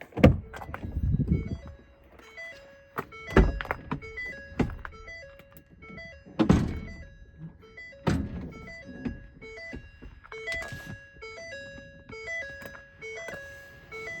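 A repeating electronic chime, short pitched tones about two or three a second, with four loud thumps about three, six and eight seconds in.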